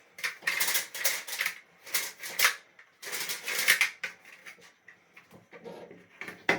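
Clattering and scraping of a hard plastic retractable clothesline housing being handled and repositioned against the wall, in three rough bursts over the first four seconds, then a few light knocks.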